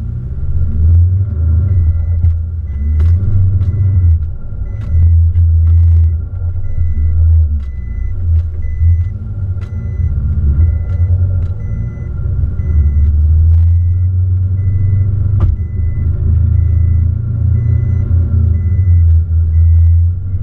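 Heavy low rumble, with a faint high electronic beep repeating at an even pace from about two seconds in, and a few sharp clicks.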